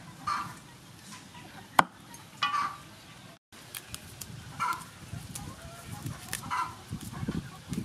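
Chickens clucking in short calls about every two seconds. A single sharp click comes about two seconds in, and herb stems rustle as their leaves are stripped off.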